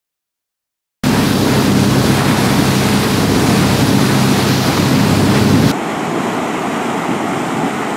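Silent for about a second, then loud wind and water noise over a steady low engine hum, as from a boat crossing open sea. Just over five seconds in it cuts to quieter surf washing over rocks.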